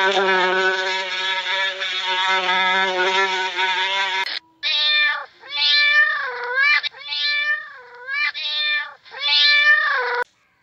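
Honeybees on a hive frame buzzing in a steady drone for about the first four seconds. Then kittens meow in a run of short calls, one after another.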